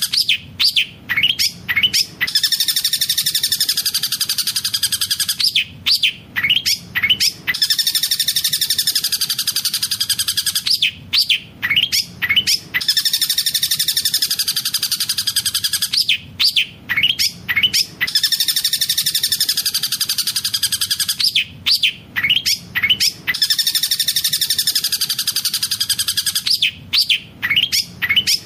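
Long-tailed shrike (cendet) singing: a fast, rolling trill that wavers in pitch, broken about every five seconds by a quick cluster of sharp, loud calls, in a repeating pattern.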